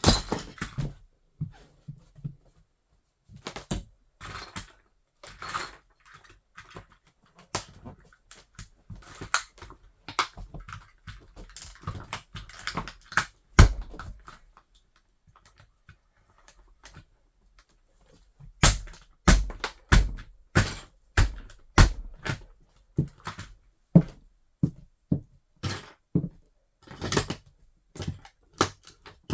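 A toy car being crushed underfoot by a wedge sandal: irregular cracking and crunching clicks with heavy thumps. The sharpest impact comes about halfway through, and a run of low thumps follows about two-thirds of the way in.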